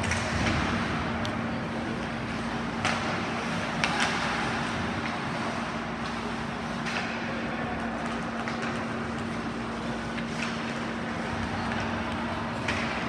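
Ice hockey play in a rink: skates scraping on ice and several sharp clacks of sticks and puck, over a steady low hum.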